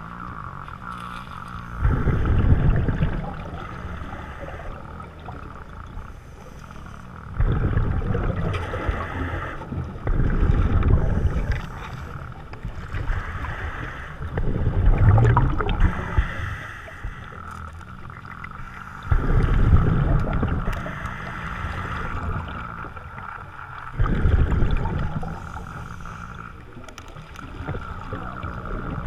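Scuba diver breathing through a regulator, heard underwater: exhaled bubbles rumble out every four to five seconds, six times, over a steady hiss.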